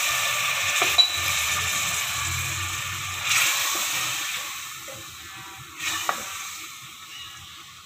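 Chicken and masala sizzling in an aluminium pot as a wooden spoon stirs, with a few knocks of the spoon against the pot. The sizzle fades steadily: half a cup of water has just gone in and is cooling the pan.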